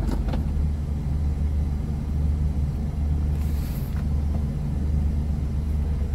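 A 2019 Suzuki Mehran's small three-cylinder petrol engine idling steadily, heard from inside the cabin as a low hum.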